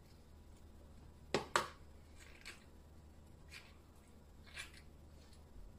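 A spoon and fingers stuffing chopped pickle vegetables into red peppers over a plastic bowl: two sharp clicks close together about a second and a half in, then a few fainter clicks.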